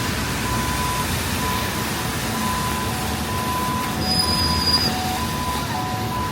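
Steady hiss of rain and city street noise, with a repeating electronic beep switching between two pitches and a brief high squeal about four seconds in.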